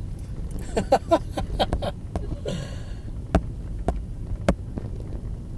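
Steady low rumble of a car on the move, heard from inside the cabin. A short hiss comes midway, followed by a few sharp clicks.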